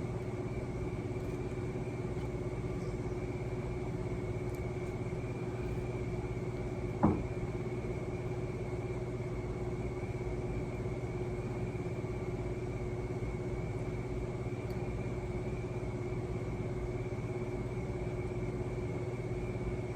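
Steady mechanical hum with a couple of fixed tones, and one brief sharp sound about seven seconds in.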